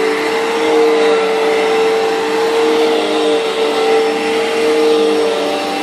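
Vacuum cleaner running steadily, a continuous motor whine over airflow hiss.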